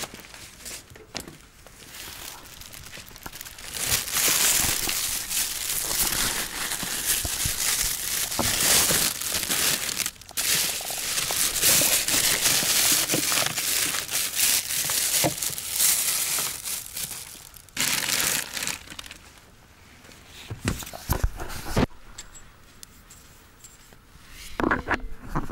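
A thin plastic bag crinkling and rustling right against the microphone. It is loud from about four seconds in until about eighteen seconds, with quieter handling noise before and after.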